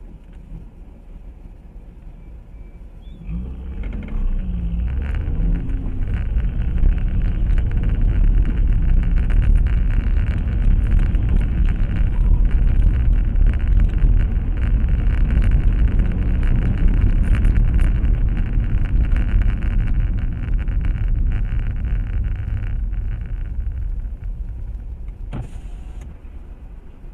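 A car driving: a low engine and road rumble that builds from a few seconds in, holds steady, then eases off near the end.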